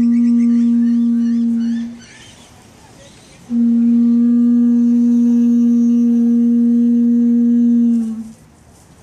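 Conch shell trumpet blown in two long, steady blasts, each one held note, sounding the Fijian call to gather. The first blast ends about two seconds in, and the second starts about a second and a half later and stops near the end.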